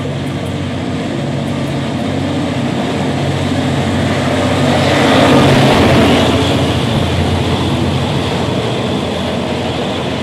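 A locomotive-hauled train passes through the station: the DT668 steam locomotive's consist with the R152 diesel-electric helper. A steady low engine drone and a rumble build to a peak about halfway through, then ease off as the train goes by.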